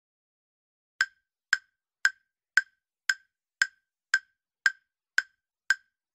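Countdown-timer sound effect of a clock ticking: ten even, sharp ticks about two a second, starting about a second in.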